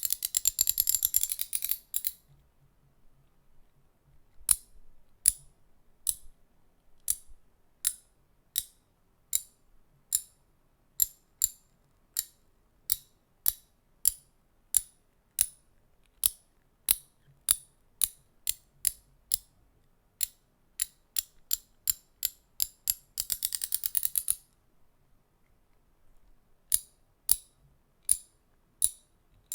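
Small handheld object clicked close to the microphone for ASMR: crisp single clicks at roughly one to two a second, with a stretch of rapid continuous clicking at the start and another about three-quarters of the way through.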